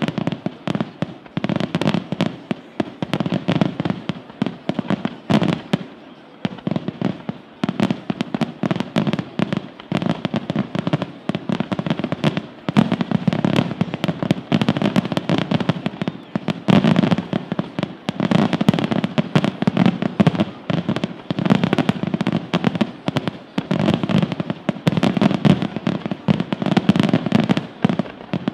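Aerial firework shells bursting in a dense, unbroken barrage of sharp bangs, several a second.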